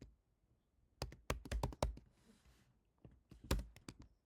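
Typing on a computer keyboard: a quick run of keystrokes about a second in, then another short burst near the end.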